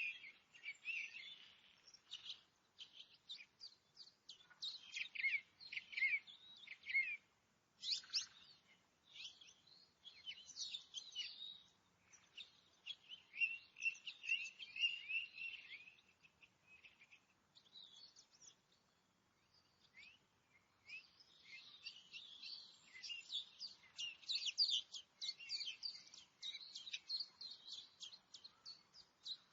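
Several songbirds singing and chirping together in woodland, a dense overlapping chorus of short high-pitched phrases that thins out briefly about two-thirds of the way through.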